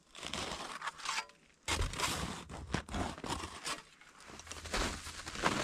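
Snow being scraped and crunched. A few short scrapes come first, then after a brief pause near-continuous scraping and crunching.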